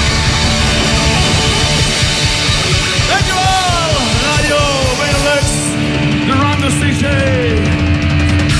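Live hard rock band playing loud: two electric guitars over driving drums and cymbals, with falling, sliding notes riding over the top about three and again six seconds in.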